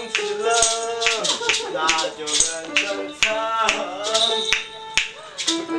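A man's voice singing wordless, sliding notes over maracas and a tambourine shaken in a steady beat, about two to three shakes a second.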